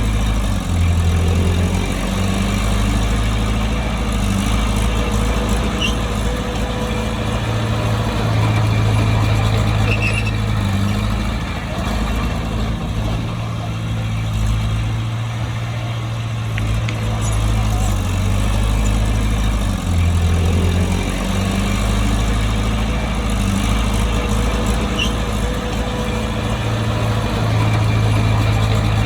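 Bulldozer's diesel engine running at work, a steady low drone whose pitch steps up and down every several seconds as the load changes.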